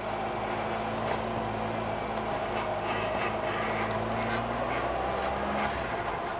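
Toyota AE82 Corolla FX16's four-cylinder 4A-GE engine running steadily under tyre and road noise as the car drives, with scattered light clicks and rattles. The engine note shifts about five seconds in. It is heard close to the wheel, from a camera mounted on the car's body.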